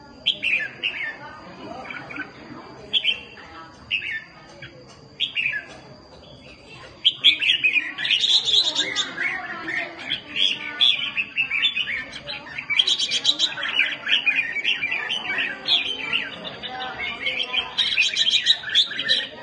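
Caged red-whiskered bulbuls in a face-off, giving a few separate sharp falling calls, then from about seven seconds in breaking into a dense, continuous rapid chatter. This is the harsh competitive 'ché' calling that bulbul keepers prize in fighting birds.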